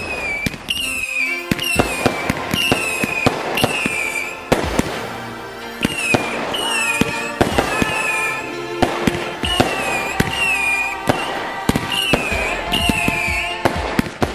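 Fireworks sound effect: a run of short whistles, each falling in pitch, about one a second, mixed with many sharp bangs and crackles, over music.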